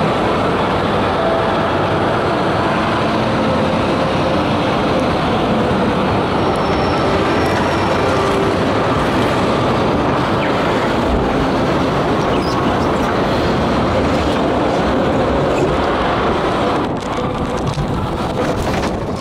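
Steady rumbling ride noise heard from aboard a moving log-flume boat. About seventeen seconds in it turns duller and slightly quieter.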